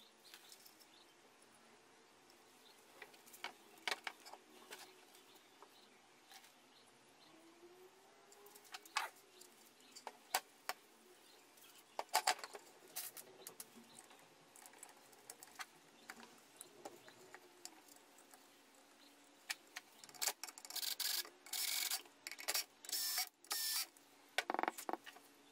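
Light clicks and handling knocks as a speaker driver and its wires are fitted into a wooden enclosure, then, about twenty seconds in, a cordless drill driving screws in several short bursts.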